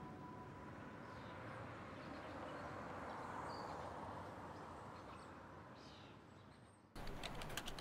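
Faint outdoor city ambience: a low, even background rumble with a few short bird chirps. Near the end it cuts off abruptly to indoor room tone with a quick run of sharp clicks.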